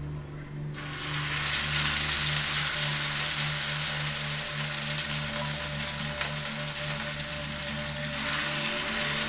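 Barracuda slices sizzling in hot oil in a frying pan. The hiss starts suddenly about a second in, as the first slice goes into the oil, and keeps going steadily.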